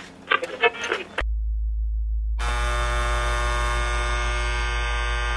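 A few irregular clicks in the first second. Then a steady electric hum cuts in abruptly, and a little over two seconds in a harsh, even electric alarm buzz from a vintage flip clock joins it and holds.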